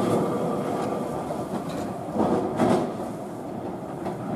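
W6-class Melbourne electric tram running away along its tracks, the rumble of its wheels slowly fading. The wheels give a few sharp clacks on the rails a couple of seconds in and again near the end.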